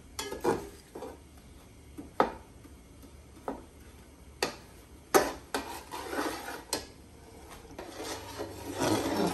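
Slotted metal spoon stirring melting jaggery and milk in a large aluminium pot, with sharp clinks of the spoon against the pot's sides every second or so. The stirring grows louder and rougher near the end.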